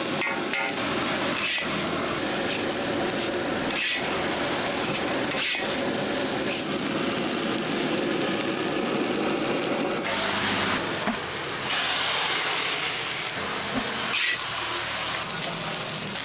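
Street-stall fried rice being stir-fried in a wok over a gas burner: a steady roar and sizzle, with the metal spatula scraping the pan now and then.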